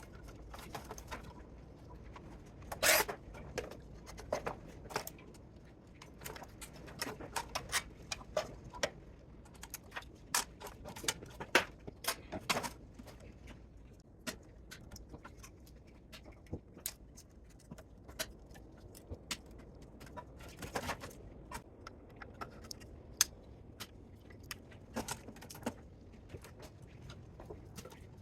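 Irregular metallic clicks, clinks and clatter of hand tools and loose metal parts as a DC spot welder is taken apart for scrap, with a louder knock about three seconds in.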